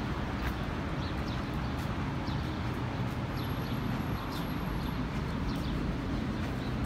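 Steady low city traffic rumble, with small birds chirping over it in many short, falling notes.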